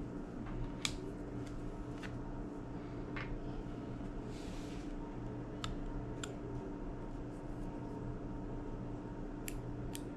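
Scattered small sharp clicks and taps of iPod classic parts being handled and fitted during reassembly, with a brief scrape about four and a half seconds in, over a steady background hum.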